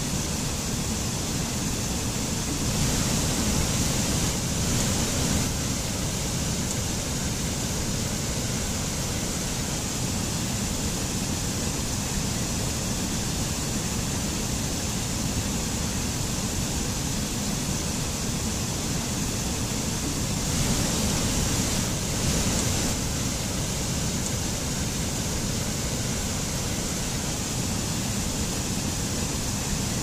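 Rushing water of a small forest waterfall cascading over rocks: a steady, even roar that swells slightly a few seconds in and again past the middle.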